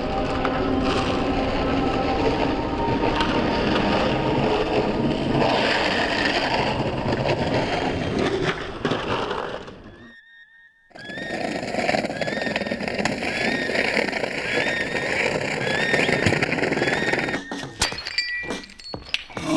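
Skateboard wheels rolling on street asphalt with traffic noise, cutting to near silence for about a second. A steady high chirp then repeats over and over, and a run of sharp cracks and clicks comes near the end.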